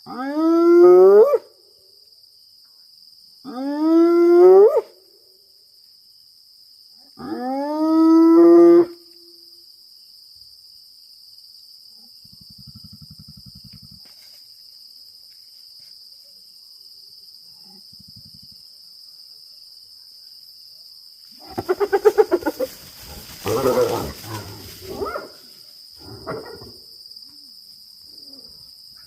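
Spotted hyena whooping: three long calls, each rising in pitch, about four seconds apart. About twenty seconds in comes a run of rougher, pulsed animal calls, over a steady high insect trill.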